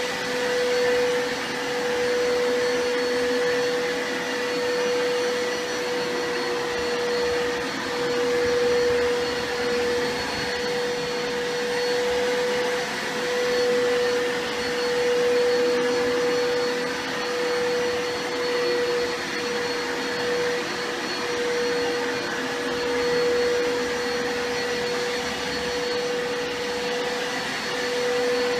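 Vacuum cleaner motor running continuously with a steady whine over its rushing airflow, its loudness swelling and easing every couple of seconds.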